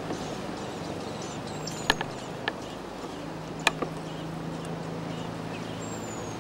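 Outdoor background with a steady low hum. There are a few sharp clicks about two seconds in and again near four seconds, and a faint, thin high whistle that falls in pitch just before the first click.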